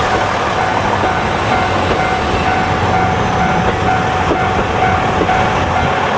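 E195-series long-rail transport cars rolling past, a loud steady rumble and hiss of steel wheels on the rails with a few faint knocks.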